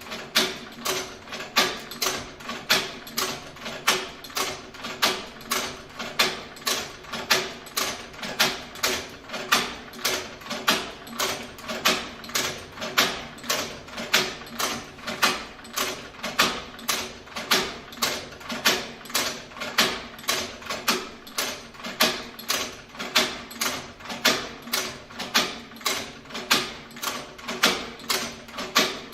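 Hand stitcher leather sewing machine running steadily, its stitching mechanism clacking about twice a second in an even rhythm over a steady low hum.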